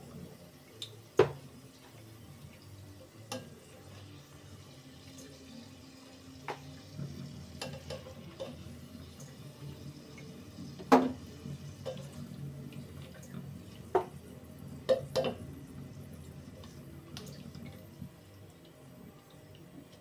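Hot oil bubbling in a pot of frying food, with scattered sharp clinks of metal tongs and a slotted spoon knocking against the aluminium pot, the loudest about a second in and about eleven seconds in.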